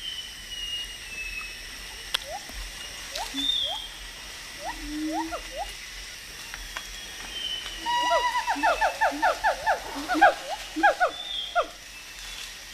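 Siamang calling: short rising whoops, scattered at first. About eight seconds in they become a fast, louder run of rising notes over lower short notes, then tail off. A high falling whistle repeats faintly behind.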